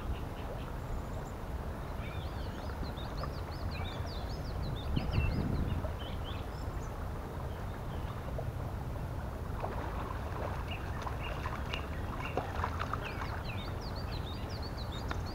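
Small songbirds chirping and singing throughout in short high rising and falling notes, over a steady low rumble. A few soft clicks and taps come in the second half.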